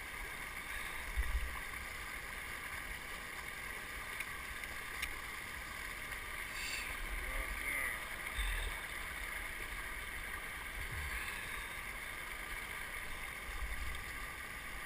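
Steady noise of water around a kayak, with a few dull bumps and light splashing as a smallmouth bass is unhooked and held in the water.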